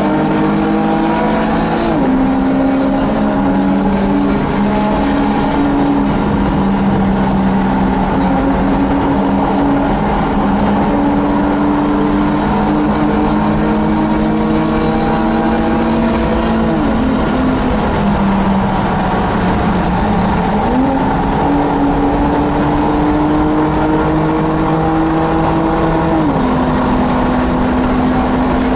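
Race car engine heard from inside the car at racing speed, its pitch climbing slowly as it pulls through each gear, with sudden drops at upshifts about two seconds in, just past the middle and near the end. Shortly after the middle shift the pitch sinks, then jumps back up quickly, as on a downshift under braking. A steady wash of wind and tyre noise runs underneath.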